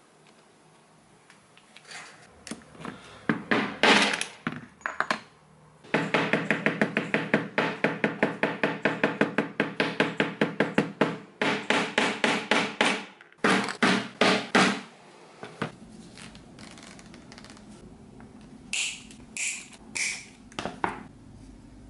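Rapid light hammer taps, about five a second, on a metal setting tool with a ringing tone, setting a small metal fitting into leather, after a few separate knocks. Near the end, four sharp clicks as end-cutting pliers nip teeth off a metal zipper.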